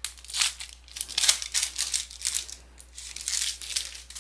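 Wrapper of a basketball trading card pack being torn open and crinkled, in a run of short rustling tears.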